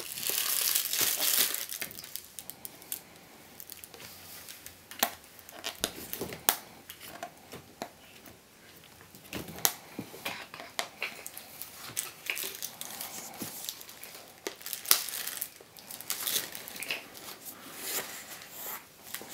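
Crinkling and rustling of plastic wrapping as a toddler rummages through a gift basket, loudest in the first second and a half, then scattered clicks and knocks of items being handled.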